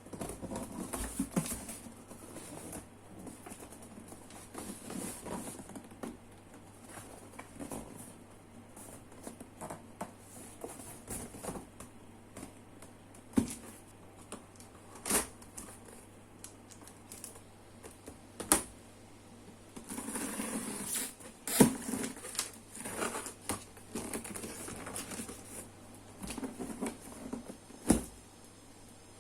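Keyboard box and packaging being handled and opened: scattered rustling and scraping with a few sharp clicks and taps, and a denser stretch of rustling about two-thirds of the way through.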